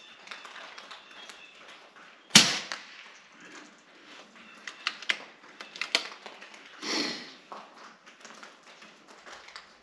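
A single shot from a KalibrGun Cricket II .22 PCP bullpup air rifle: one sharp pop about two seconds in. A few seconds later come several light mechanical clicks as the side lever is cycled to chamber the next pellet, then a brief rustle.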